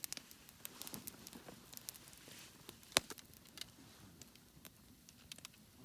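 Campfire crackling and popping with scattered sharp snaps, one much louder pop about three seconds in.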